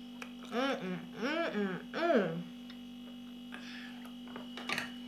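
A woman's voice making three wordless hums, each rising and then falling in pitch, over a steady background hum; a short click near the end.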